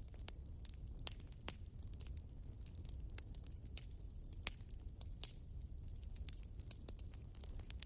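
Wood logs burning in a fireplace, crackling with frequent irregular sharp pops over a steady low rumble of the flames.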